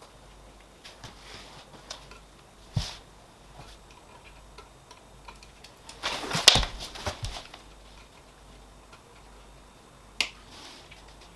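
Small sharp plastic clicks and clatter of hands working wire connectors onto the 3D printer's sensors. There is a single sharp click about three seconds in, a louder run of clicks and rattling around six to seven seconds in, and another click near the end.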